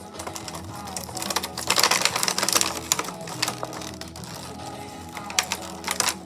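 Background music, over which packaging is handled: loud crinkling and rustling about a second and a half in, with a run of sharp clicks.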